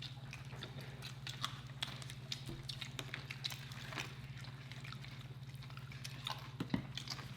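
Faint wet chewing and mouth clicks from people eating burgers, scattered small clicks throughout over a steady low hum.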